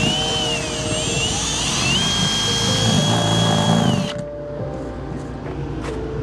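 Cordless drill boring through the camper's wall panel, its motor whine dipping and rising with the trigger, then holding steady before it stops about four seconds in.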